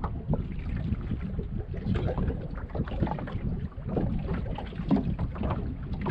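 Wind buffeting the microphone, a steady low rumble, with water slapping against the hull of a fishing boat in short irregular splashes.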